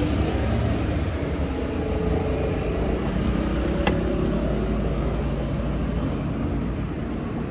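Road traffic: vehicle engines and tyres giving a steady low rumble with a few held hums. A single short click about four seconds in.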